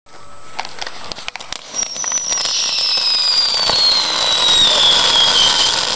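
Homemade firework packed with firework powder, burning as a fountain of sparks. It starts with scattered crackles and pops, then builds to a loud, steady hiss, over which a whistle slides slowly down in pitch for about four seconds.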